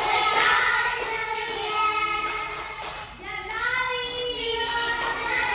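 A child's high singing voice in long held notes, with a short break about three seconds in.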